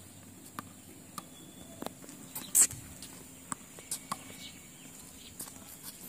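A tennis ball bouncing on a hard court and being hit with a racket: a string of sharp, irregularly spaced pops, the loudest about two and a half seconds in.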